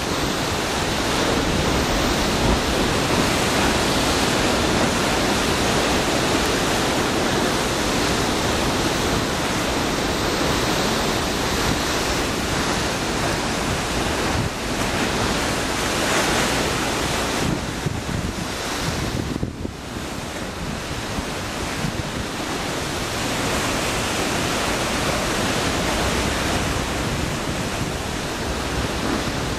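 Ocean surf surging into a narrow rock inlet and breaking against its walls: a continuous rushing wash of churning sea water. It eases briefly about two-thirds of the way through before building again.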